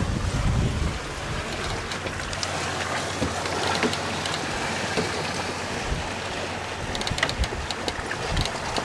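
Water rushing along the hull of a sailboat under way, with wind buffeting the microphone, heavier in the first second. A few small splashes or ticks come near the end.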